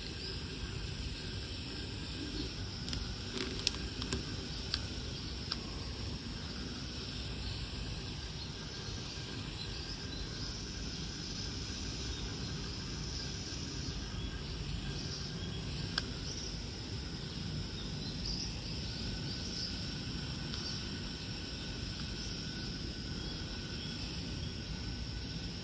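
Early-morning garden ambience: a steady high trill with faint chirps over a low rumble. A few sharp clicks come in the first few seconds and one more about sixteen seconds in.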